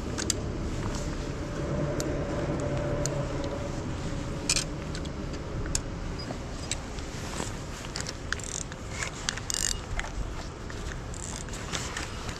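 Fishing tackle being handled, with scattered light clicks and rattles, over a steady low rumble.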